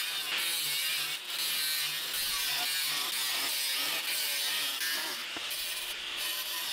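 Angle grinder with a thin cut-off disc cutting through square steel tubing: a steady, high-pitched grinding hiss that eases briefly a few times as the cut goes on.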